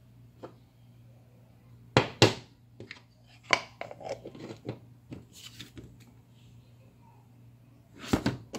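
Jars being handled: a green plastic screw lid clicking as it is fitted onto a jar of almond butter, and the jars knocking down onto a hard cooktop surface. There are two sharp knocks about two seconds in, another at about three and a half seconds, a run of small clicks just after, and a louder pair of knocks near the end.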